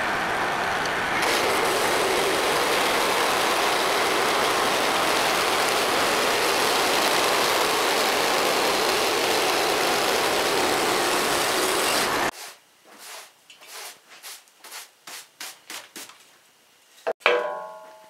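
Woodland Mills portable bandsaw mill running: its gas engine at full speed and the band blade cutting through a maple log make a loud, steady noise that stops abruptly about twelve seconds in. Light knocks follow, then one sharp knock with a brief ring near the end.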